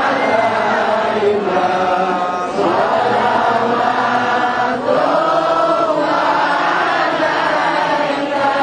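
Many voices chanting Islamic devotional verses together in long, drawn-out phrases whose pitch slides up and down, with short breaks between phrases.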